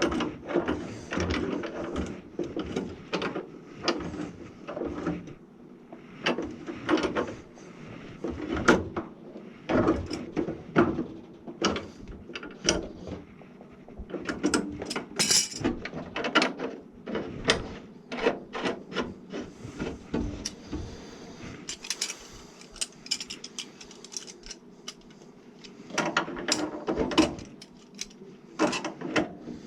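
Irregular clicks, knocks and rattles of hand tools and metal or plastic parts being handled and fitted, some in quick runs.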